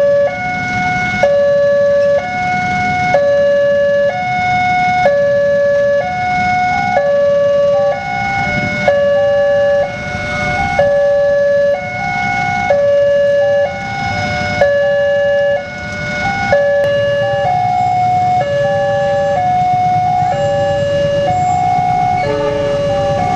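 Railway level-crossing warning siren sounding a steady two-tone high-low alternation. About a third of the way in, the crossing's second siren, a little different in pitch and out of step, joins it, so the two clash. Road traffic rumbles underneath.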